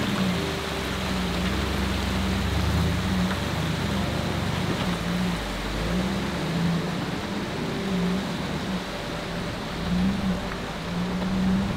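Jeep Gladiator's engine running at low speed, its pitch rising and falling again and again with the throttle, over a steady hiss.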